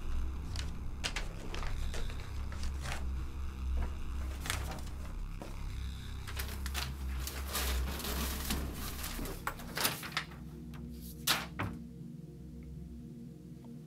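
Film sound design: a heavy low rumble with scattered knocks and clatters of objects being handled around a desk. About ten seconds in the rumble drops away to a quieter low steady drone, with a couple of sharp knocks after.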